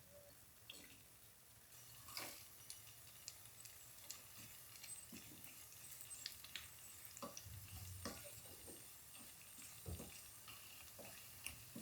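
Faint sizzling of food frying in a pan while it is stirred, with scattered light clicks and scrapes of a utensil against the pan.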